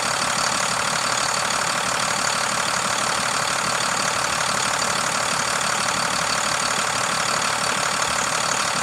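International MaxxForce DT inline-six diesel engine idling steadily.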